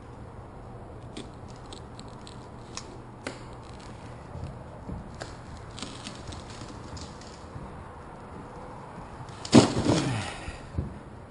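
A blade cutting the urethane adhesive around a pickup truck's back glass: scattered light clicks and scrapes, then near the end one loud creaking scrape whose pitch falls over about half a second.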